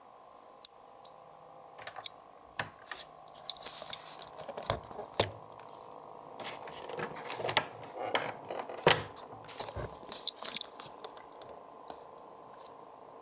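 The 140 mm fan of a Cooler Master Notepal ErgoStand II laptop cooling stand running with a faint steady hum, the fan noise at issue. Through the middle come irregular sharp clicks and knocks, the loudest about nine seconds in.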